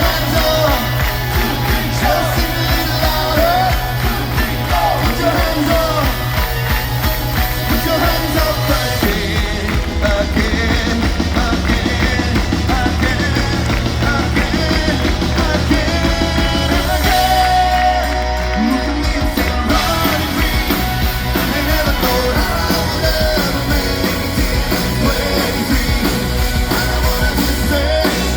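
Live rock band playing a song with a lead vocalist singing. The bass and drums come in fuller about nine seconds in and drop back briefly past the middle.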